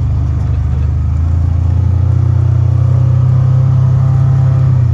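Vehicle engine running steadily under load while driving through deep snow, getting a little louder about a second and a half in.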